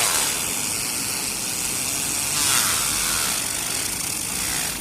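Compressed air from an air compressor blowing in a steady rush, swelling briefly about two and a half seconds in.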